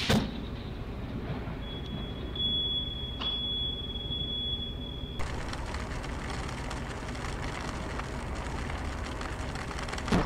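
Steady hiss with a thin high tone for a few seconds. From about five seconds in comes a car's steady road and rain noise from dashcam footage on a wet highway. Right at the end there is a sudden loud crack of lightning striking close by.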